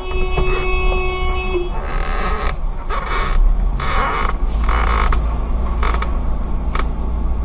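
Road-vehicle noise: a steady low rumble, with a held horn-like tone that stops about a second and a half in, then several harsh bursts of noise.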